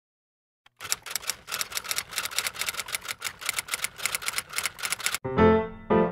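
Typewriter sound effect: a rapid, even run of key clacks starting about a second in and stopping after about four seconds. Piano music comes in near the end.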